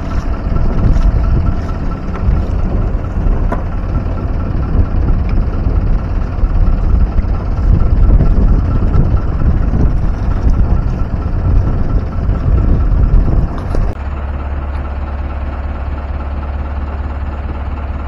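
Fishing boat's engine running with a loud, rough low rumble; about 14 s in it cuts off abruptly to a quieter, steady low hum.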